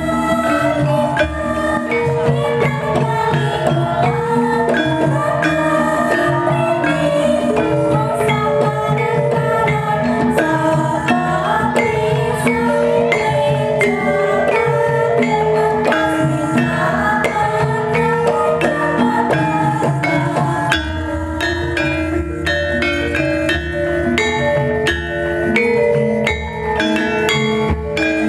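Javanese gamelan ensemble playing: bronze keyed metallophones ring out an interlocking melody over drums. The bass grows heavier about three-quarters of the way through.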